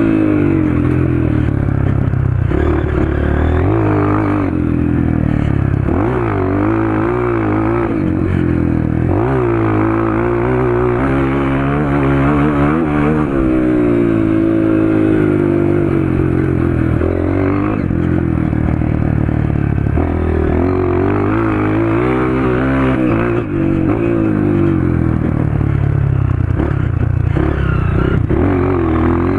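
Honda CRF230 dirt bike's single-cylinder four-stroke engine through a PowerCore 2 exhaust, revved hard over and over as it is ridden, its pitch rising and falling again and again.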